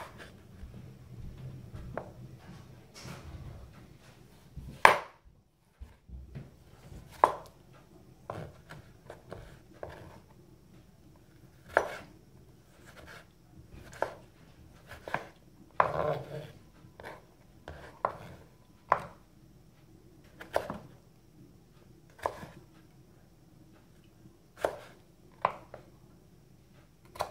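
Kitchen knife slicing a tomato on a wooden cutting board: irregular knocks of the blade hitting the board, roughly one every second or two.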